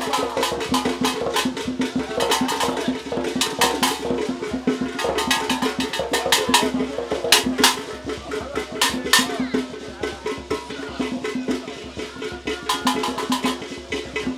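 Traditional Ghanaian barrel drums beaten by hand in a fast, dense rhythm of sharp strokes, with some voices among them.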